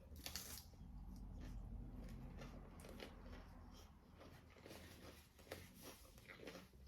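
Faint eating sounds: quiet chewing with scattered small crunches and clicks.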